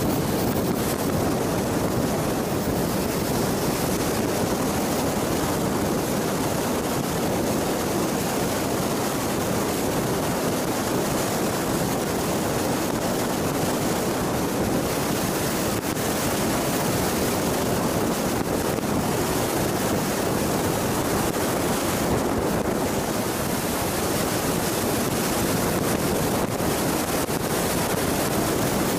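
Steady rushing road and wind noise from a Jeep driving along, with no engine note or separate events standing out.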